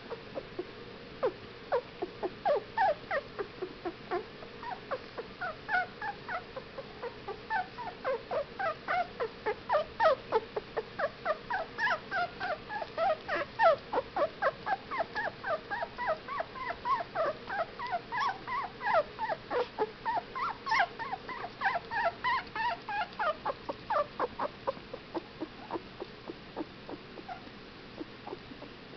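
Fifteen-day-old whippet puppies whimpering: a long run of short, high squeaking cries, several a second, thinning out to a few near the end.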